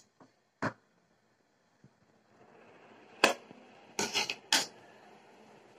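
Scissors snipping through the paper seal stickers on a cardboard phone box, two short sharp snips in the first second. Then, after a faint steady hiss begins about two seconds in, come four louder sharp clicks and knocks in quick succession from handling the box and scissors.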